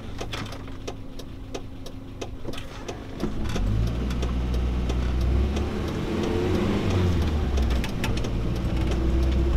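Renault Trafic van's 2165cc engine idling with a light, regular ticking, heard from inside the cab. About three seconds in the van pulls away and the engine note grows louder and rises as it accelerates.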